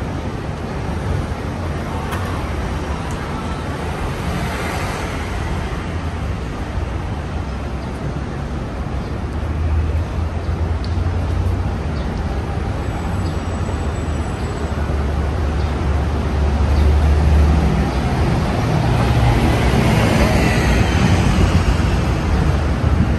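Street traffic: vehicles running past on a city road in a steady wash of traffic noise. A deeper rumble builds in the second half and is loudest in the last few seconds, as if a heavier vehicle were passing close.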